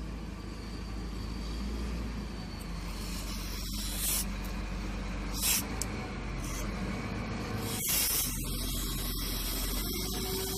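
Aerosol contact cleaner sprayed onto a magnetic switch's terminals in three short hissing bursts, the last one the longest, cleaning contacts on a circuit that has lost its power supply.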